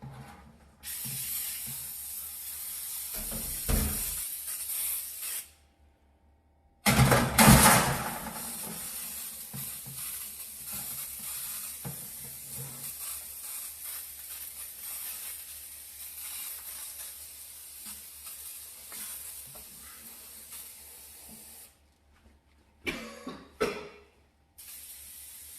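Cleaning spray hissing in long continuous spurts: one of about four seconds, then after a short pause a much longer one of about fifteen seconds, which starts with a brief clatter. A few short knocks follow near the end, and then another spurt of spray begins.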